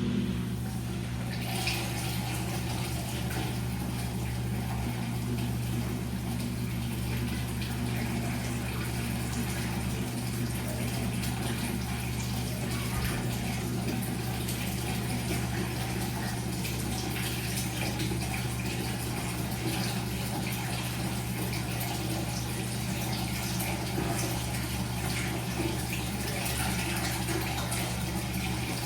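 Washing machine running: water flowing through it over a steady low hum.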